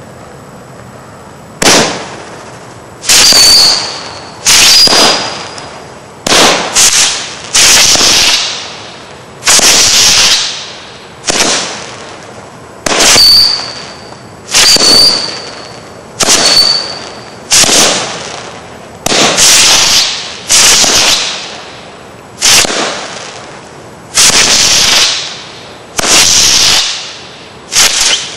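Winda 'Cadmium Horse' 16-shot consumer fireworks cake firing, shot after shot, one every one to two seconds. Each shot is a sharp, loud bang followed by a noisy tail that dies away over about a second, and a few carry a short high whistle.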